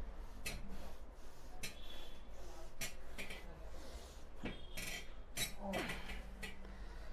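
A string of about eight short, sharp clicks and rustles from hands and body shifting on a chiropractic treatment table, with a brief sliding vocal sound near 6 s, over a low steady hum.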